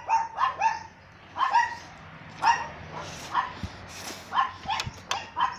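A dog barking again and again in short, high yaps, a fraction of a second to a second apart.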